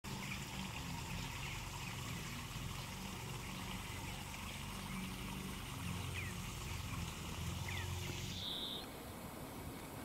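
Water trickling steadily at a garden pond, with two short bird chirps in the second half; the trickle cuts off suddenly shortly before the end.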